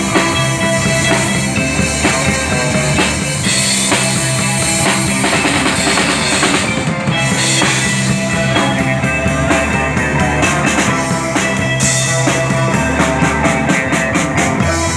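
Rock band playing live with no vocals, the drum kit prominent over steady low bass notes.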